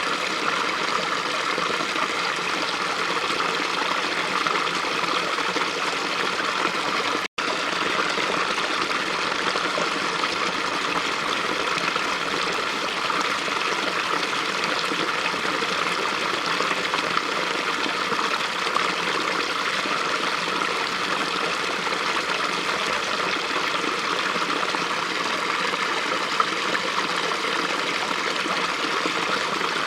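Small stream running, water rushing and trickling over its bed in a steady, even babble. A momentary dropout about seven seconds in.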